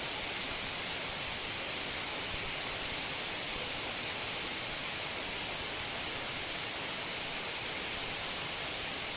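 Waterfall's main fall: a steady, even rush of falling water, hissy and unchanging.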